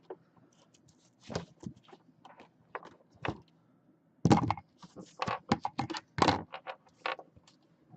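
A run of short knocks, thunks and clicks as objects are handled, moved and set down, the loudest a little past four seconds and again past six seconds.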